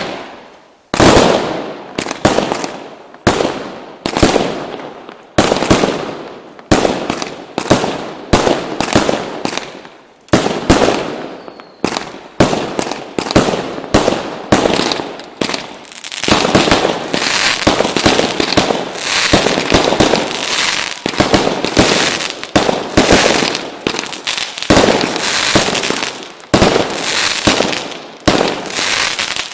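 Lesli consumer fireworks going off: a string of sharp bangs about one to one and a half seconds apart, each trailing off in crackle. About halfway the shots come faster and merge into near-continuous crackling, then space out again near the end.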